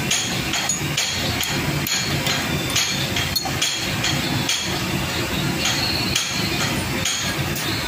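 Repeated sharp metallic taps and clinks, about one to two a second, on a metal part held in a four-jaw lathe chuck while it is being set up by hand. A steady low machine hum runs underneath.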